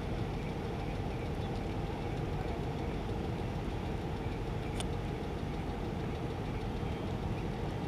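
Engine idling steadily, a continuous low drone such as an idling truck engine.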